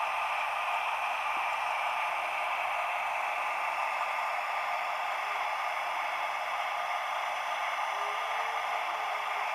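The MB 16V652 TB10 V16 diesel engine of a class 216 locomotive running steadily, heard as an even hiss with almost no bass. A faint tone wavers through it in the second half.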